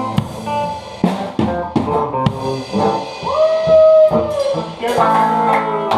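Rock band playing, with a drum kit hitting snare and bass drum and an electric guitar. A long held note, bent up at its start, sounds from just past halfway for about a second.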